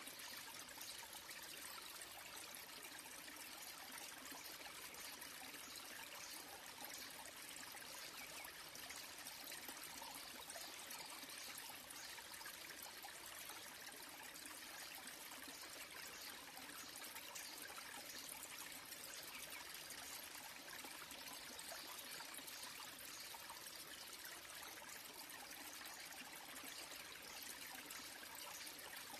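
A thin waterfall trickling and splashing steadily down a rock face, heard faintly as an even rush of water.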